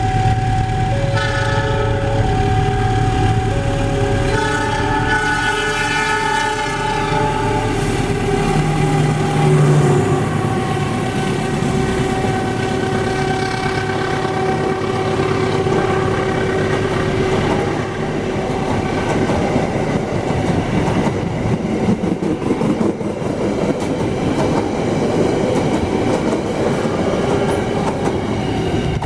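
Two railway level-crossing alarms sounding their alternating two-tone electronic warnings over each other. About eight seconds in, a train horn gives a long steady blast, and the train then passes with a rumble and clatter of wheels on the rails.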